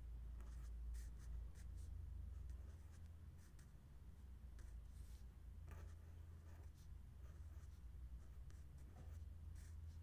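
Fine-tip marker pen writing on lined notebook paper: faint short strokes, one after another, over a low steady hum.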